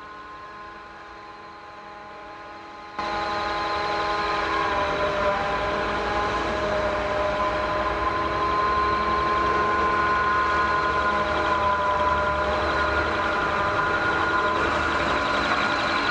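Quadcopter drone propellers whining steadily, several pitches held together and drifting slightly. The sound turns louder and fuller about three seconds in.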